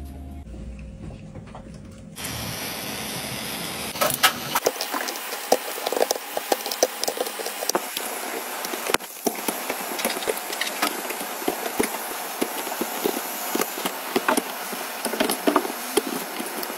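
Heat gun blowing with a steady hiss that starts about two seconds in, while a blade scrapes and chips shattered back glass off an iPhone 12 Pro Max. From about four seconds in the glass gives many sharp crackles and clicks.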